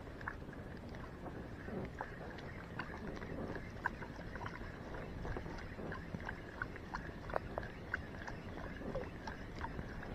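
Faint, irregular small clicks and ticks from hands working a spinning reel's spool, bail and handle, over a low steady rumble of wind and sea.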